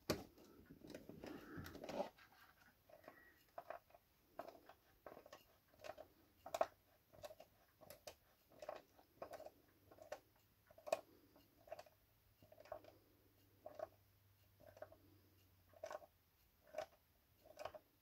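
Screwdriver slowly twisting a stiff screw into a model stand, faint, with a brief rustle of handling and then a short creak or click at each turn, about two a second.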